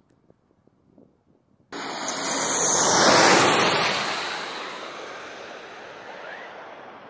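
Near silence, then, a little under two seconds in, the jet roar of an F-15E Strike Eagle's twin turbofan engines cuts in abruptly. It swells as the jet passes low on landing approach at approach power, peaks about three seconds in, and fades steadily as the jet draws away toward the runway.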